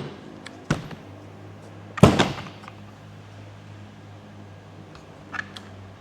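A handful of sharp knocks from tools and parts being handled during the drive clutch bolt removal, the loudest about two seconds in with a short ringing tail.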